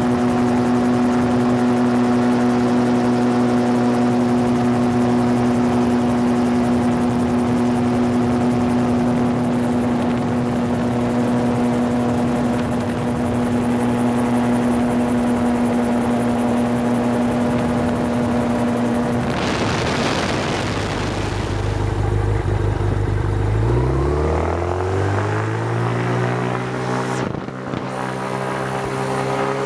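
The gyrocopter's four-stroke 1000cc Yamaha RX1 snowmobile engine and pusher propeller running at a steady cruise drone. About two-thirds of the way in the note breaks off into a rushing noise. Then the engine is throttled up, its pitch rising steadily over the last several seconds as the gyrocopter rolls across grass under takeoff power.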